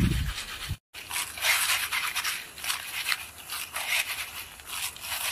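Crisp fried ash plantain chips rustling and crackling as a hand tosses them in a clay pot, in uneven bursts of dry rattling. A short low rumble at the start cuts off abruptly just before a second in.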